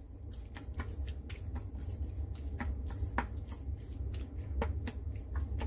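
Wooden chopsticks stirring raw squid pieces in a stainless steel bowl: irregular light clicks and taps of the chopsticks against the metal, over a steady low hum.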